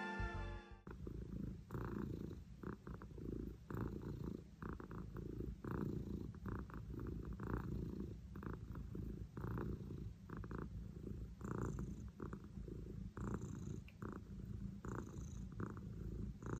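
Domestic cat purring, quietly and steadily, swelling with each breath about once a second. A music track cuts off in the first second.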